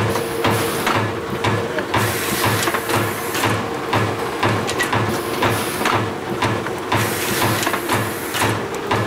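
FAS TW475 turret winder with its TU2201 tape unit running a roll-wrapping cycle: a steady mechanical clatter with a regular low thud about three times a second over a constant hum. A high hiss comes and goes every second or two.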